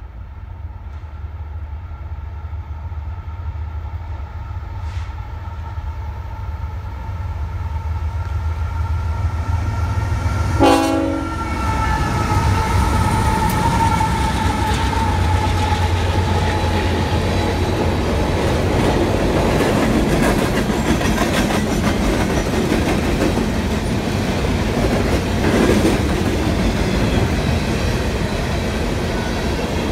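Union Pacific AC4400CW-led coal train approaching and passing close by: the diesel locomotives' low rumble builds while the horn sounds long and steady, sagging slightly in pitch as it goes by. The lead unit rushes past with a sudden loud burst about 11 seconds in, and the rest is the loaded cars' wheels clattering over the rail joints.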